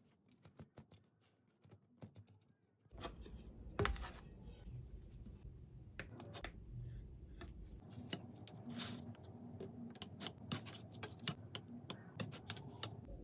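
Faint clicks and scrapes of a utensil against the container as a steamed semolina dhokla is loosened and turned out of its greased container. It starts nearly silent, and after about three seconds a run of scrapes and small knocks begins, the loudest knock coming about a second later.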